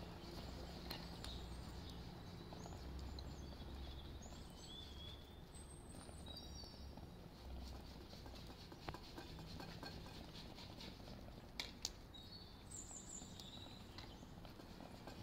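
Faint ambience of small birds chirping now and then over a low, steady background rumble, with a few soft clicks.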